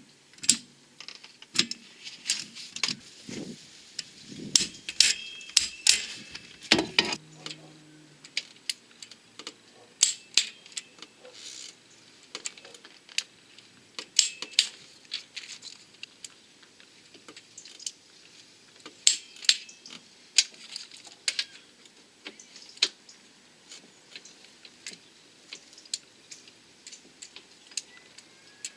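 A torque wrench tightening bolts: irregular sharp metallic clicks and clinks of the wrench on the bolts. The first few seconds are a little busier, with some handling noise.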